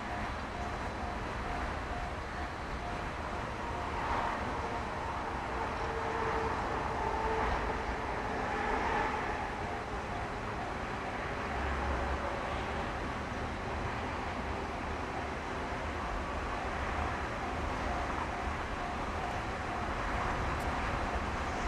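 Steady outdoor background rumble like distant traffic, with a faint pulsing tone that comes and goes.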